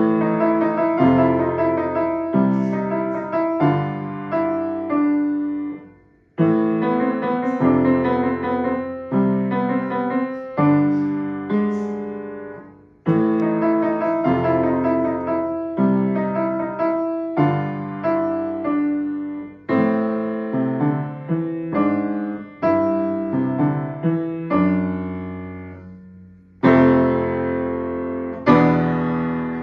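Solo piano music: phrases of struck, fading notes and chords, with brief breaks about six, thirteen and twenty-six seconds in.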